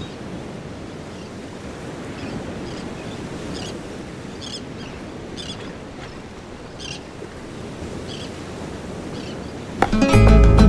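Steady outdoor ambience of moving water and wind, with faint short bird calls, likely gulls, every second or so. Near the end, acoustic guitar music in a flamenco style comes in suddenly and much louder.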